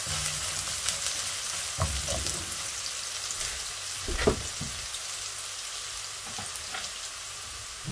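Chopped garlic and spring onion stems sizzling steadily in hot oil in a wok while being stirred, with a few soft knocks and scrapes of the spatula against the pan, the loudest about four seconds in.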